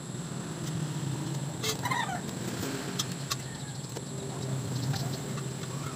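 A brief bird call about two seconds in, over a steady low hum, with a few light clicks later on.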